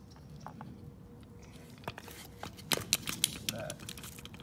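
Irregular sharp clicks and crackles, beginning about halfway through, as a carbon-fouled EGR valve is handled in a plastic tub of foaming degreaser.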